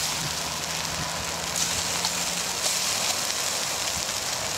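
Campfire embers hissing steadily as water is poured over them to put the fire out.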